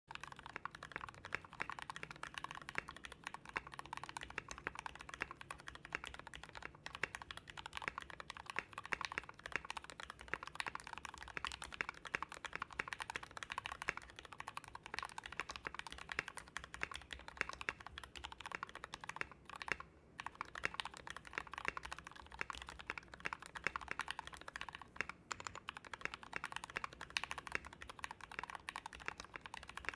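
Typing on a mechanical keyboard in an acrylic Tofu case with Gateron Yellow linear switches: a steady stream of quick keystrokes, with a short pause about two-thirds of the way through.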